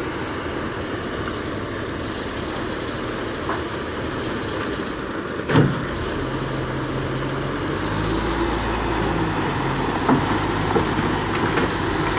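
Heavy diesel engine running steadily, with one sharp clank about halfway through. A deeper, steady engine hum comes in after that and grows slightly louder.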